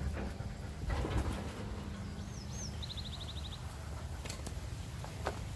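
A small bird calling: two quick wavering whistles a little over two seconds in, followed at once by a fast trill of short high notes, over a low steady rumble.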